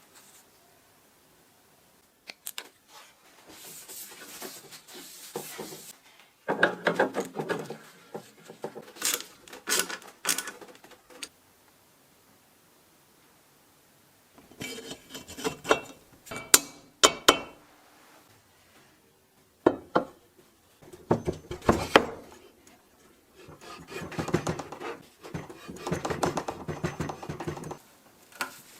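Metal parts of a bench drill being handled and worked by hand: irregular clinks and sharp taps between stretches of scraping and rubbing, with short pauses.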